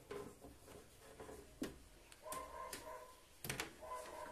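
A few sharp knocks and clicks from handling things, and a dog giving two drawn-out whines, each under a second long.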